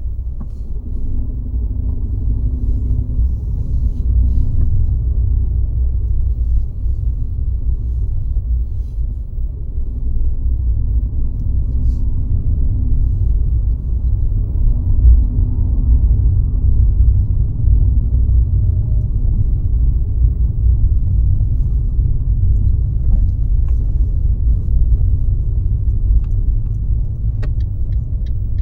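Car driving along the road: a steady low rumble of tyre and engine noise.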